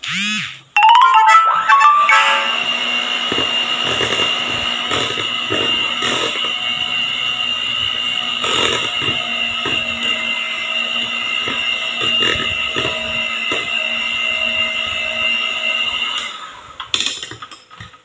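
Electric hand mixer speeding up about a second in, then running at a steady whine while its beaters tap against a stainless steel bowl of cake batter. It is switched off shortly before the end.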